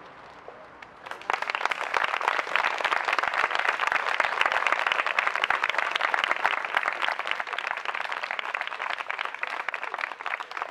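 A small crowd applauding by hand, breaking out about a second in and tapering off slightly toward the end.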